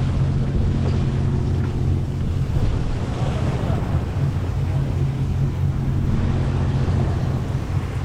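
Steady low drone of a sportfishing boat's machinery at sea, with wind buffeting the microphone and water washing along the hull.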